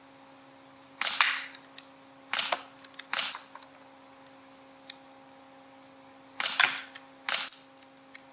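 Gamo P-430 CO2 air pistol firing five shots: three in quick succession, a pause of about three seconds, then two more. Each is a sharp pop, with faint ticks between shots.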